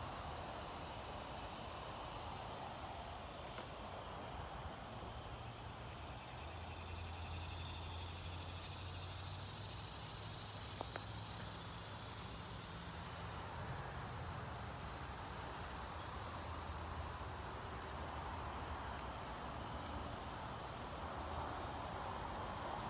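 Outdoor garden ambience of steady insect chirring, with a faint low hum for several seconds in the middle and a couple of small clicks partway through.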